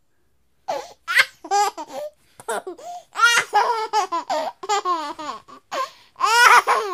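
A baby laughing: a string of short, high-pitched laughs that starts after a brief silence, with the loudest burst near the end.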